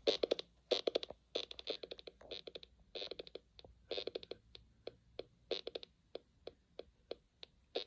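Rapid, irregular clicking: sharp dry clicks coming in quick clusters of several at a time, then thinning to single clicks about three a second near the end. The source is a mystery noise that nobody can place.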